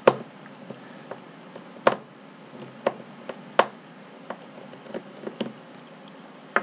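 Sharp clicks and taps of a small screwdriver working the retaining screw of an XLR microphone connector, four louder clicks in the first four seconds and lighter ones after, over a faint steady hum.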